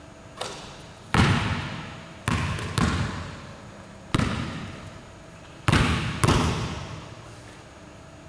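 A basketball bouncing on a hardwood gym floor: a lighter hit about half a second in, then six loud, irregularly spaced bounces, each ringing out in the hall's echo.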